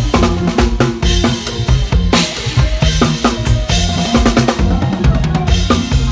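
Instrumental band music in lam phloen style: a drum kit keeps a fast, steady beat with kick, snare and rimshots over a moving bass line, with no singing.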